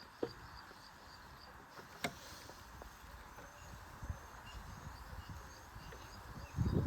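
A few sharp metallic clicks of hand tools working the rusted clamps on a Bajaj Pulsar 220's carburettor, the loudest two about two seconds apart, with louder handling noise starting near the end.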